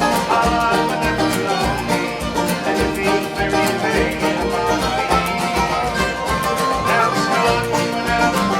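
A band playing an Irish folk song, with a steady beat in the bass.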